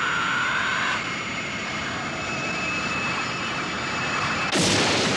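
Animated sound effect of a whirling vortex: a steady rushing noise with a high whine over it. A sudden loud blast comes about four and a half seconds in.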